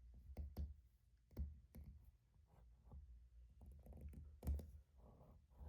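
Light taps on a staking-set punch, pressing a balance wheel onto a pocket watch's balance staff: a handful of soft, irregularly spaced clicks, the loudest about three-quarters of the way through.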